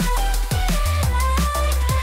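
Background music: an electronic track with a steady beat and heavy bass.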